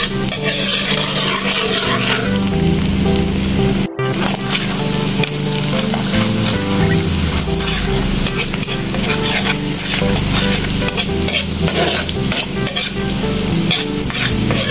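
Minced garlic sizzling and crackling in melted butter in a pan while a spatula stirs and scrapes through it. The sound cuts out for an instant about four seconds in.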